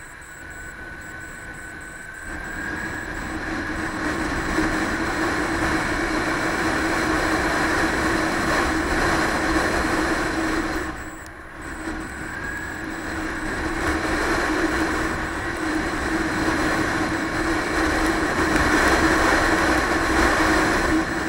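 Motorcycle riding noise from a helmet camera: wind rushing past in gusts over a steady engine hum. It grows louder over the first few seconds as speed builds, drops briefly about halfway through, then builds again.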